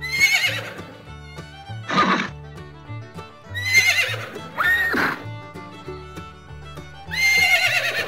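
Horses neighing about five times, each whinny a high call that falls in pitch, over steady background music.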